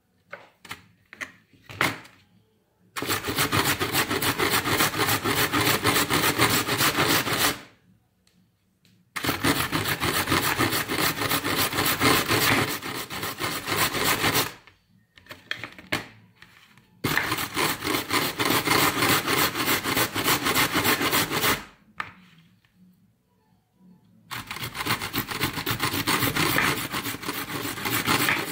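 Carrot being grated on a stainless steel box grater: four long runs of rapid rasping strokes, each lasting four to five seconds, separated by short pauses with a few scattered scrapes and clicks.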